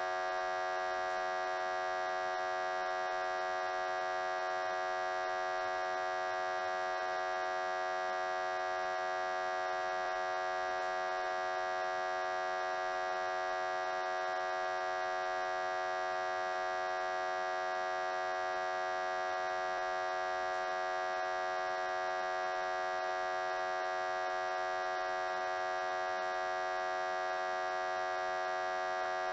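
Electrical transformer humming: a steady buzz rich in overtones that holds the same pitch and loudness throughout.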